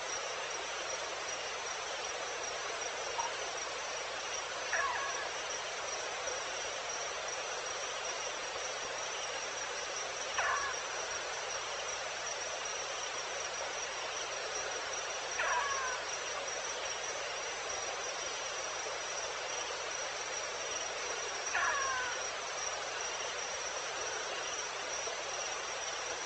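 Evening insects, crickets, trilling in one steady high-pitched tone over a soft hiss of ambience. A short call that glides down in pitch sounds about every five to six seconds.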